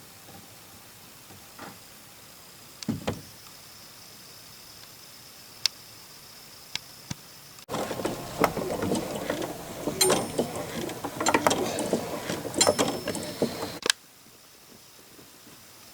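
Wooden and metal mechanism of an antique barrel organ being worked by hand. A few isolated clicks and knocks come first, then about six seconds of dense clattering and knocking that stops abruptly, with no organ notes sounding.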